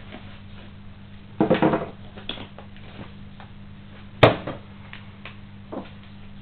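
Unpacking and handling sounds: packaging and loose plastic and metal parts rattling in a short burst about a second and a half in, then a single sharp knock about four seconds in, the loudest sound, as something is set down on the table, with a few lighter clicks after.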